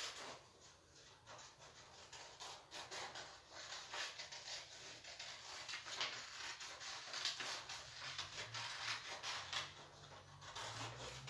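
Scissors cutting through a sheet of coloured paper: faint irregular snipping and paper rustling.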